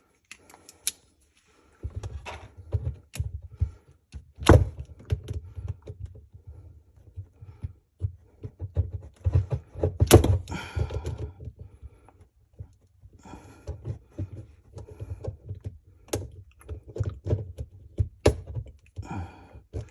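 Parts and hoses being handled and pushed back into place under a sink: irregular knocks, clunks and light rattles. The sharpest knocks come about four and a half, ten and sixteen seconds in.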